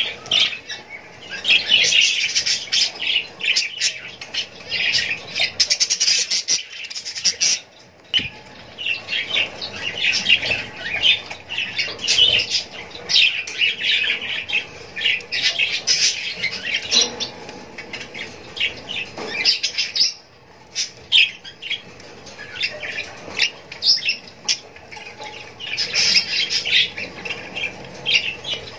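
Budgerigars chirping and squawking in a dense, rapid, high-pitched chatter, with short lulls about 8 and 20 seconds in.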